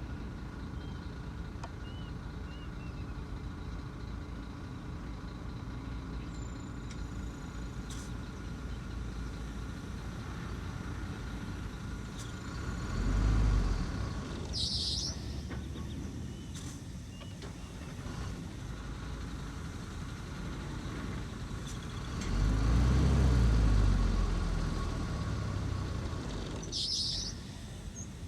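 Heavy diesel engine of earth-moving machinery running steadily, revving up under load twice, the second time for several seconds. Two short, sharp hisses are heard, one in the middle and one near the end.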